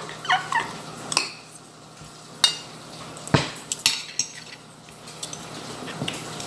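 Spoon and fork clicking and scraping against a plate while eating, with a handful of sharp separate clinks. A brief pitched vocal sound comes just after the start.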